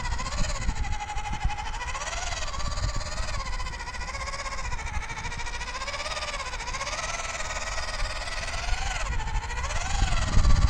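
Electric motor and gearbox of a WPL B24 GAZ-66 RC truck whining as it strains in low gear, pulling a trailer through loose sand. The pitch of the whine rises and falls as the load and throttle change, over a low rumble that swells near the end.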